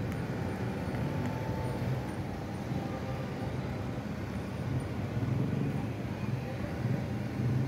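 Steady city traffic noise from cars on a nearby road, with faint voices of people around.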